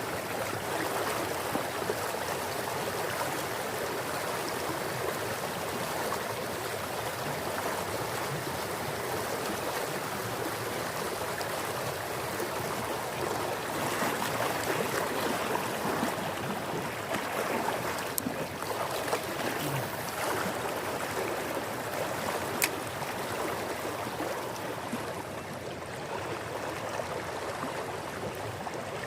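Flowing river water making a steady rushing noise, with a couple of brief sharp clicks.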